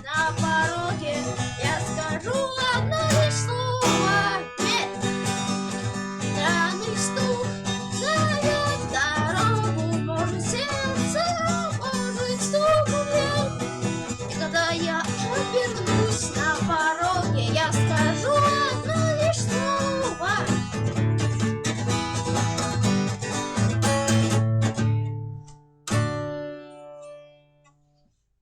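Guitar music: chords with a bending melody line over them, closing with a final chord about 26 seconds in that rings out and fades away.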